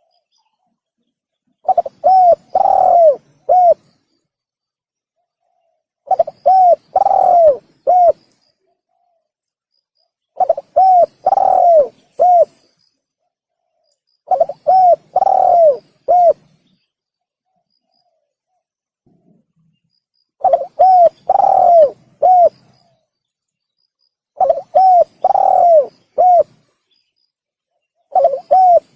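Spotted dove (tekukur) cooing: about seven repeated phrases, each a couple of short coos, one longer falling coo and a short closing note, coming every four seconds or so with quiet gaps between.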